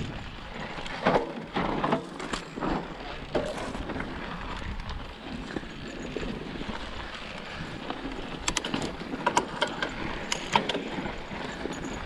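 Mountain bike rolling down a rocky dirt singletrack: the tyres run over loose gravel and the bike rattles and knocks over rocks. A quick run of sharp clicks and knocks comes about eight to eleven seconds in.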